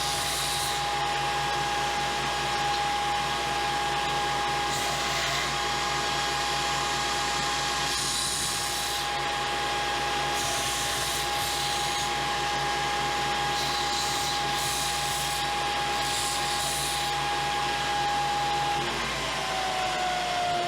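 Power tool motor running steadily at a constant high whine, with patches of harsher high hiss coming and going. Near the end it is released and winds down, its pitch falling.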